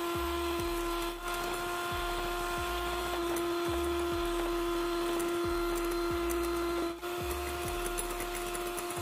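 Electric hand mixer running at high speed, its beaters whisking eggs in a glass bowl: a steady motor whine that breaks off briefly twice. The eggs are being beaten to a pale, creamy foam.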